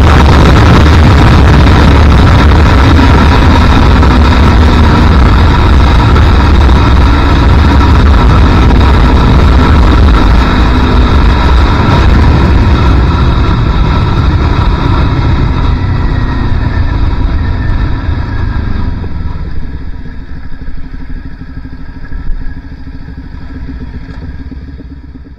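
Sport motorcycle at high speed, heavy wind rush over the microphone with a steady engine note under it. The bike slows through the second half, so the wind and engine gradually die down, fading out at the end.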